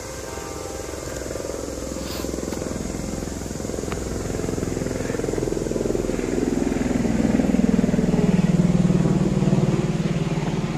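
A motor engine passing by, growing louder as its pitch slides steadily down, loudest in the last few seconds.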